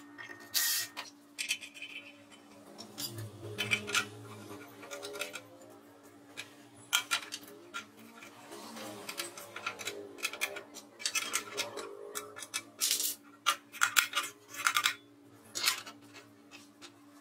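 Irregular metallic clicks and clinks from steel parts of a cut-off saw being handled and fitted, over soft background music.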